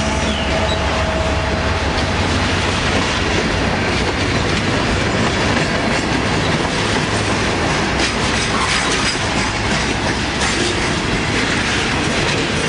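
Freight train cars rolling past close by: steel wheels on rail make a steady, loud rattle with clickety-clack over the rail joints.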